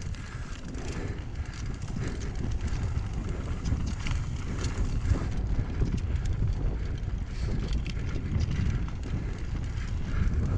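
Mountain bike ridden over a rough, rocky dirt trail: wind rushing over the camera microphone, with the bike rattling and clattering over rocks throughout.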